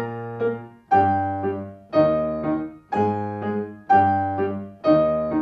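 Steinway Model D concert grand piano: a slow octave exercise. A loud octave is struck about once a second and each is followed by a lighter repeated note about half a second later, with the thumb rebounding from forearm rotation. Every note rings on and fades before the next.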